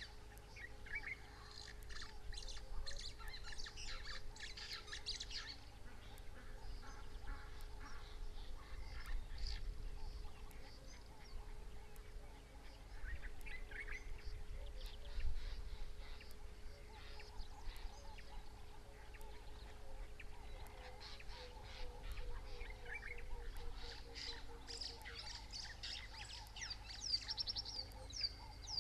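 Wild birds calling and chirping by a river: many short high calls scattered throughout, with a quick run of sweeping notes near the end, over a faint steady hum and low rumble.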